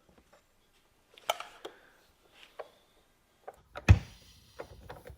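Wooden cabinet-door rails and stiles being handled on a router table: scattered light clicks and knocks of wood on the table, with one loud knock about four seconds in.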